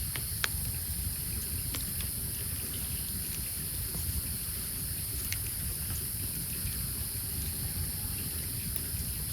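Wood campfire crackling, with a few sharp pops scattered through, over a steady low rumble and a high hiss.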